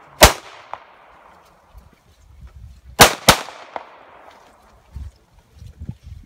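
Three gunshots from a competitor's gun on a shooting stage. There is a single shot, then a quick pair about three seconds later, each trailing off in a long echo. Footsteps on the dirt path follow near the end.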